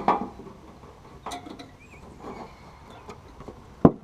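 Scattered light clinks and knocks of tools and metal parts during work under a truck, with one sharp knock near the end.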